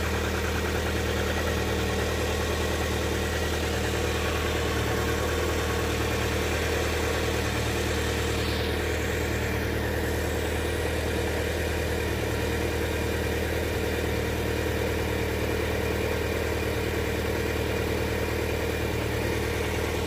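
Land Rover Freelander's 1.8 K-series four-cylinder petrol engine idling steadily. It has a lumpy idle, which the technician suspects comes from a faulty camshaft position sensor (fault code P0340).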